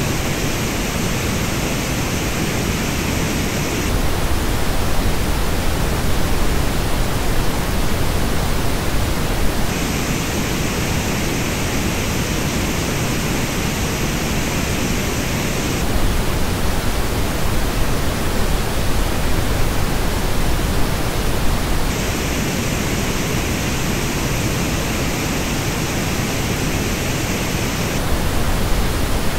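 Steady pink noise that switches every six seconds or so between the flat original reference and the same noise as heard through AKG K702 headphones, whose version has a peaky, uneven treble with a dip near the top. It starts on the headphone version, turns flat about four seconds in, and keeps alternating.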